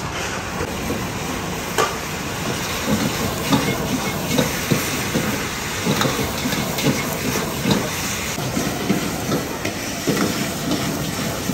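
Food cooking at a street food stall: a steady hiss of frying, with irregular dull knocks running through it.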